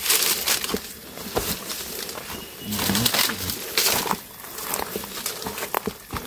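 Footsteps rustling and crunching through forest undergrowth in irregular bursts, with a brief low voice sound about three seconds in.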